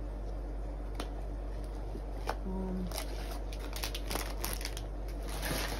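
Crinkling of a foil blind-box wrapper and small clicks of cardboard figurine boxes being handled, with the rustle heaviest near the end, over a steady air-conditioner hum.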